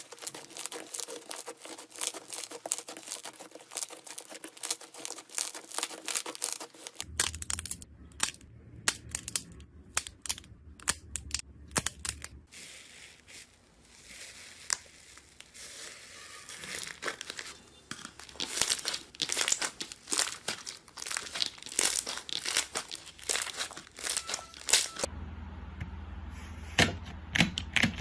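Slime being squeezed, poked and stretched by hand, giving off a dense run of crackling, popping clicks and sticky squelches. The crackling thins out for a few seconds in the middle, then comes back busier toward the end.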